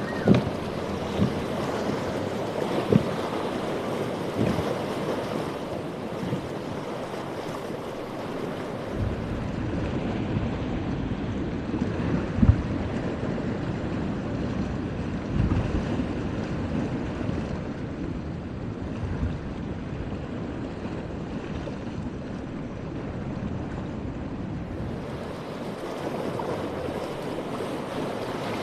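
Breaking surf and wind buffeting the microphone, with a center-console boat's outboard engines running through the waves, and a few short thumps along the way.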